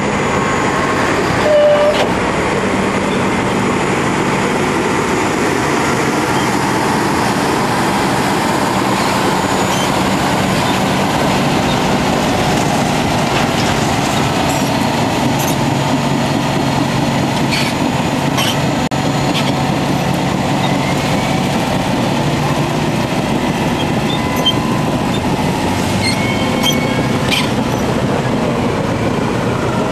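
A Caterpillar D10N crawler dozer push-loading a CAT 631E wheel tractor-scraper: both heavy diesel engines run hard under load. Short metallic clanks and squeaks come through in the second half.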